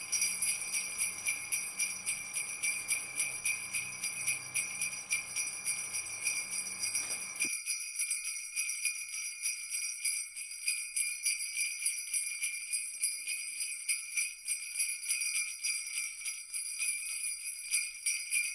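Sleigh bells jingling in a steady shaking rhythm, about three to four shakes a second. A low backing layer underneath cuts off suddenly about seven and a half seconds in, leaving the bells alone.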